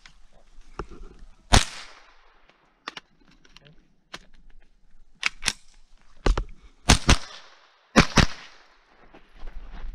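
Ruger 10/22 .22 rimfire rifle firing single shots, about seven sharp cracks at uneven gaps, with two quick double shots in the second half.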